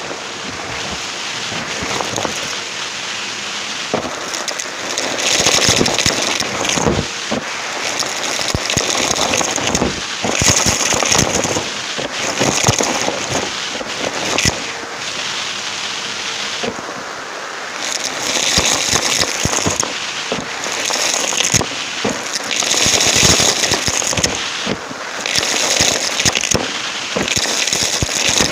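Numatic James vacuum cleaner running, heard close up through a microphone fitted to the machine, with a steady rush of suction and many sharp crackles and rattles as debris is drawn through it. The hiss swells every second or two.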